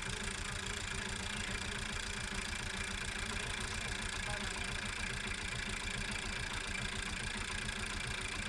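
Farm tractor's diesel engine idling steadily, with an even, fast low throb.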